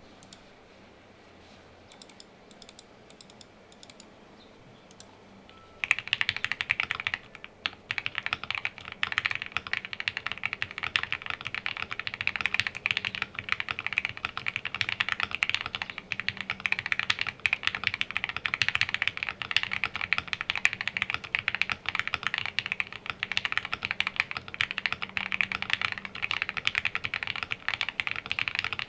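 Continuous fast typing on a QK65 custom mechanical keyboard with lubed Gateron Oil King linear switches, an FR4 plate, full foam dampening and IFK HIVE keycaps: a dense, steady run of keystroke clicks. The first few seconds hold only a few faint clicks, and the typing starts about six seconds in.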